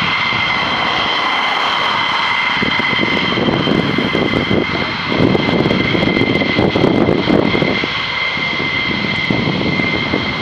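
F-15E Strike Eagle's twin F100 turbofan engines running as the jet rolls along the runway: a steady high whine over a heavy rumble, swelling a little in the middle as it passes.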